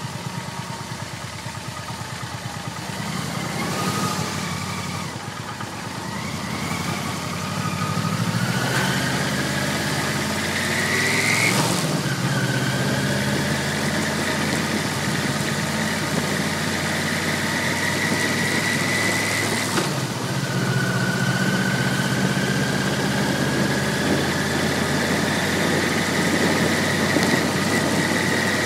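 Yamaha V-MAX 1200's V4 motorcycle engine, heard from an onboard camera, running at low revs, then pulling up through the gears. Its pitch climbs, drops sharply at a gear change about twelve seconds in and again at about twenty seconds, then climbs again.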